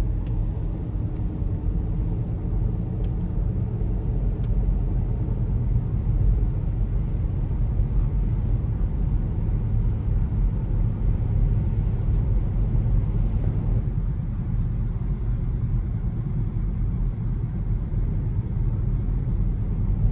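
Car driving, heard from inside the cabin: a steady low rumble of road and engine noise.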